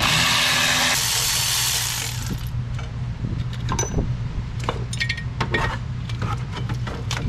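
A power tool runs for about two and a half seconds and then stops. Scattered light metal clinks and knocks follow as tools and parts are handled in the engine bay, over a low steady hum.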